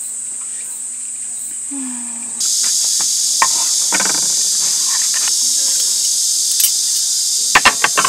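Steady high-pitched chorus of insects, jumping abruptly louder and fuller about two and a half seconds in; a few sharp clicks and knocks near the end.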